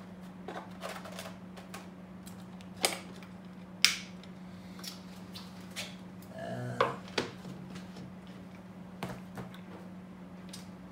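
Wooden cigar box and its lid handled against wooden humidor shelves: scattered sharp wooden clacks and knocks, the sharpest about four seconds in, over a steady low hum.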